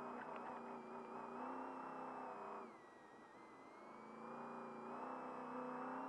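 Off-road race truck's engine heard from inside the cab while driving on a dirt track. It eases off about two and a half seconds in, then builds again, with a high whine rising and falling along with it.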